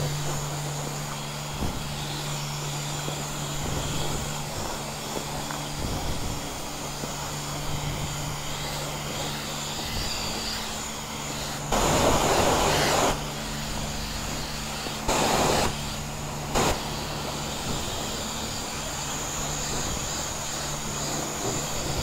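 Self-service wash bay pressure washer running: a steady pump hum under the hiss of the spray wand. Three louder bursts of rushing spray stand out, the longest about a second long some twelve seconds in, two shorter ones a few seconds later.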